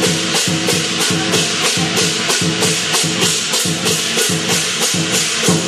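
Chinese dragon dance percussion band playing: drum and clashing cymbals beating steadily at about three to four strokes a second, over sustained ringing tones.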